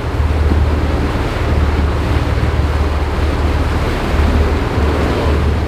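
Wind buffeting the microphone over the steady rush of a sportfishing boat's churning wake as the boat runs at speed.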